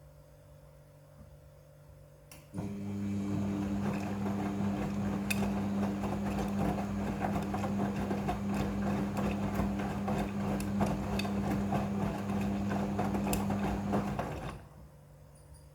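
Midea front-loading washing machine's motor turning the drum in the wash cycle: a steady motor hum over a rough churning, starting about two and a half seconds in and stopping near the end as the drum pauses. Before it starts there is only a faint steady hum.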